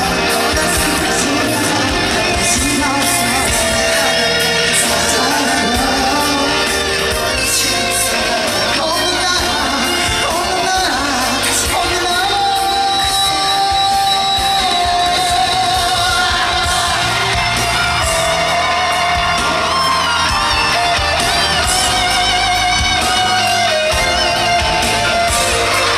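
Live pop concert music in a large hall: singing over a loud backing track, with one long held note about halfway through and yells from the audience.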